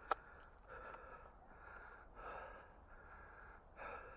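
A person panting: quick, regular breaths in and out, about six in four seconds, out of breath from exertion. A single sharp click about a tenth of a second in.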